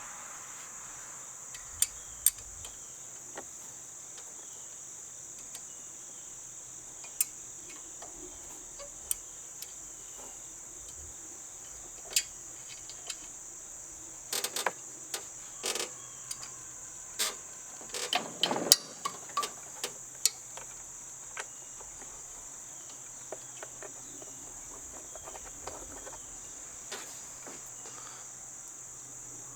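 Scattered sharp metal clicks and clinks of hand tools taking the muffler bolts and broken bracket off a walk-behind mower, busiest in a run in the middle, over a steady high chorus of crickets.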